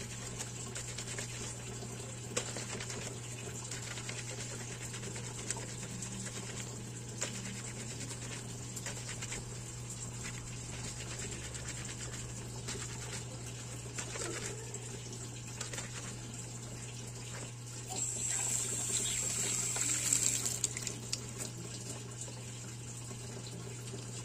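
A soapy cloth diaper being scrubbed by hand in a laundry sink: wet, lathered fabric rubbing and squelching, with a louder stretch of splashing water lasting a few seconds toward the end.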